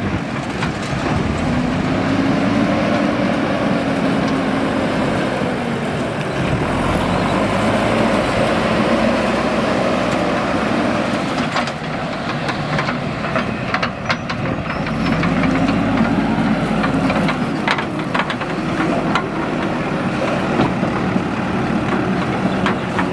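JCB 3DX backhoe loader's diesel engine working under load, its pitch rising and falling several times as it is revved. Sharp metallic knocks come through in the second half.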